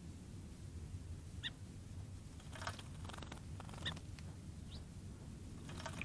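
Song sparrow bathing in a shallow dish bird bath: three short bursts of splashing as it flutters in the water, with a few brief high bird chirps in between, over a low steady background rumble.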